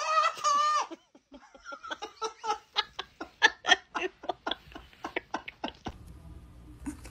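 A man laughing in a long run of short, separate bursts, starting about a second in. Before it comes a brief wavering high-pitched cry.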